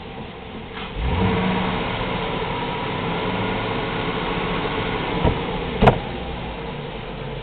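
Chevrolet gasoline engine revving up sharply from idle about a second in, holding raised revs, then dropping back toward idle near the end. Two clicks come just before it settles, the second one sharp and the loudest thing heard.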